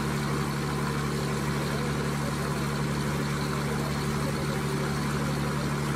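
Cruise boat's engine running steadily under way, a constant low drone with a few steady tones.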